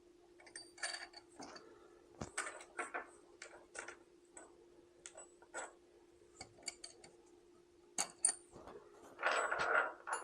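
Irregular light metallic clicks and clinks of small hardware being handled: nuts and lock washers being fitted onto U-bolts. Near the end comes a denser scraping rattle lasting about a second.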